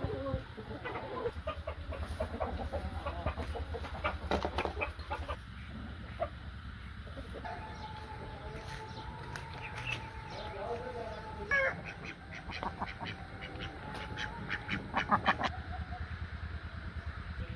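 Poultry calling in short, repeated calls that come in clusters, over a steady low hum.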